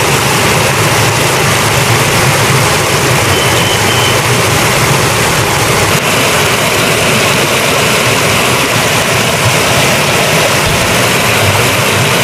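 Shallow stream rushing over rocks: a loud, steady rush of water.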